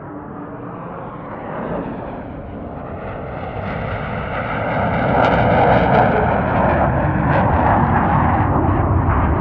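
A dense rumbling, hissing engine-like noise that builds steadily louder, as of an aircraft approaching, with a faint falling tone in the second half.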